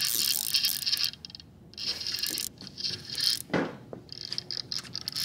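Spinning reel cranked hard in spurts against a fish pulling on the line, its gears and drag giving a fast clicking whir that stops and starts. A brief rush of lower noise comes about three and a half seconds in.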